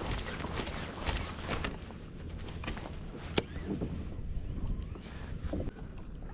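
Wind and water noise around a fishing kayak at sea, with a regular rhythmic scraping or splashing for the first couple of seconds. A single sharp click comes about three and a half seconds in.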